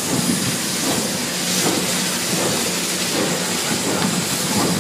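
Santa Fe 3751, a 4-8-4 steam locomotive, hissing steam steadily at close range.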